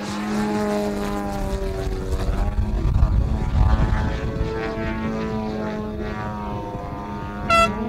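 Pilot-RC Laser 103-inch aerobatic model plane's GP 123 petrol engine with MTW tuned pipes, droning as it flies, its pitch rising and falling with the throttle through the manoeuvres and loudest about halfway through. A brief high tone sounds near the end.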